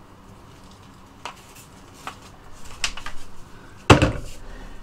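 Light clicks and taps as a length of MDF door casing is handled and marked with a pencil, then one loud wooden knock from the board about four seconds in.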